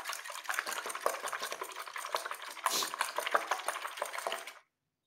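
Raw eggs being beaten with a coil whisk in a glass bowl: rapid, irregular clicking and tapping of the wire against the glass. It cuts off abruptly about four and a half seconds in.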